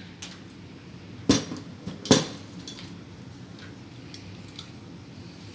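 Two sharp clicks a little under a second apart, with a few lighter ticks around them: hand-tool work on a Cat 6 cable at a patch panel.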